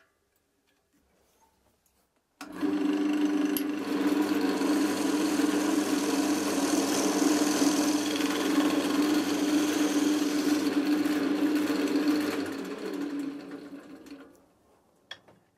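Wood lathe switching on about two seconds in and running steadily with a motor hum, while a chisel cuts the spinning ash at the tailstock nub; near the end the lathe winds down and fades out.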